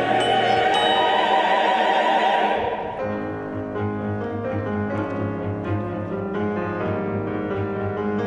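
Mixed chamber choir singing with piano and string quartet accompaniment; about three seconds in the voices stop and the strings and piano carry on alone with a regular pulse of repeated notes.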